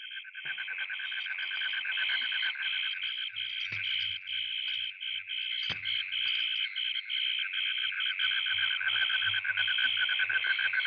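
Chorus of chirping insects: a steady high trill, with a second, higher layer pulsing about twice a second.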